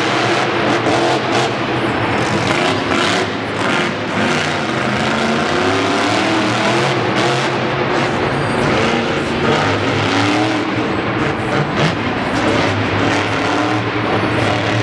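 Monster truck engines revving hard and running loud, the pitch rising and falling several times. These are supercharged, methanol-burning big-block V8s.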